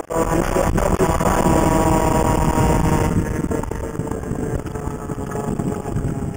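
49cc CAG two-stroke scooter engine running hard at high revs, with wind rush over the microphone. About three seconds in the engine note eases off as the revs drop.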